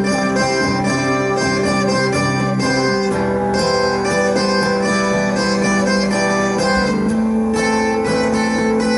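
Acoustic guitars playing an instrumental passage, with chord changes about three and seven seconds in.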